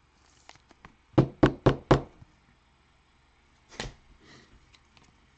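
Four quick, sharp knocks about a quarter second apart, then one more knock near the end, with light rustling and small clicks between: trading cards being tapped against a table.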